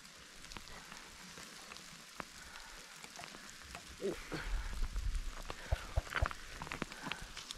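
Dry brushwood bundle crackling and rustling with many small snaps as the load is shifted and the rope pulled tight, with a low rumble coming in about halfway.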